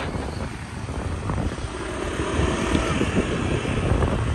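Motor scooter engine running with a steady low rumble, wind rushing over the microphone.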